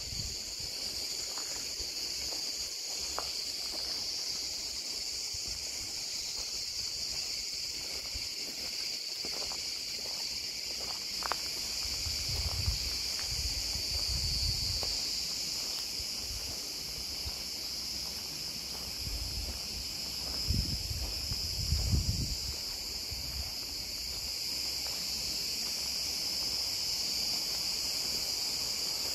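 Steady, high-pitched chorus of insects running without a break. A few low rumbles come in about halfway through and again around two-thirds of the way.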